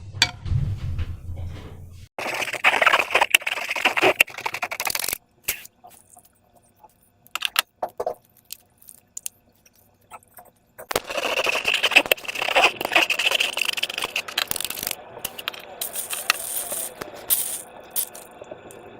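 Hands working slime and balloons, making crackly scraping and squelching handling noise in two long bursts with quieter clicks between them.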